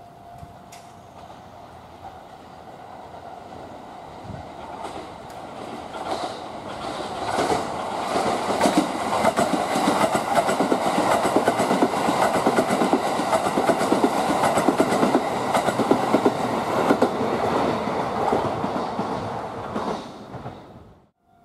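Kintetsu 80000 series Hinotori electric limited express passing through the station at speed without stopping. It builds from a distant rumble to several seconds of loud, dense wheel clatter over the rail joints, then cuts off abruptly near the end.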